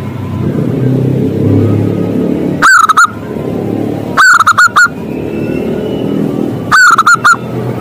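Zebra dove (perkutut) singing three loud cooing phrases about two seconds apart, each a rising first note followed by three or four quick notes. A steady low rumble runs underneath.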